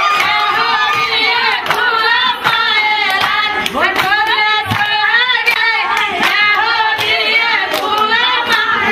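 Group of Somali women singing a buraanbur together, with steady rhythmic hand clapping.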